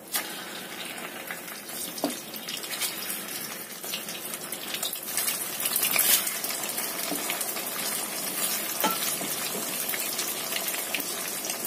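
Egg-coated tofu pieces frying in hot oil in a wok, a crackling sizzle that starts suddenly as the first piece goes in and grows louder as more pieces are added.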